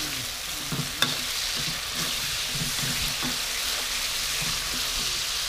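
Sauce and food sizzling in a hot steel wok while a metal spatula stirs and scrapes through it, with a sharp clink of the spatula on the wok about a second in.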